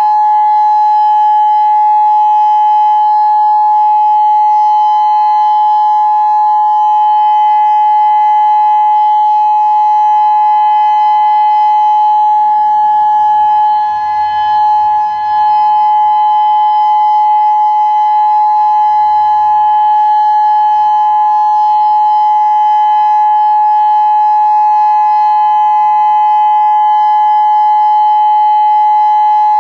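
Federal Signal Modulator 6024 electronic outdoor warning siren sounding its steady alert signal: one loud, unwavering tone with overtones, briefly dipping in loudness about halfway through.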